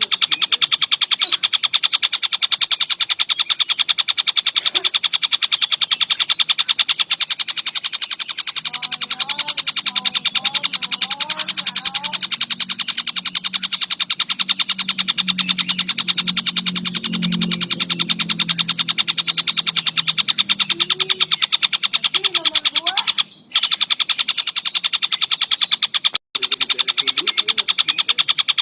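Tengkek buto kingfisher calling in a dense, non-stop chatter: a very fast, even train of sharp high notes, broken briefly twice near the end. A fainter low hum and a few lower sliding notes sit under it in the middle.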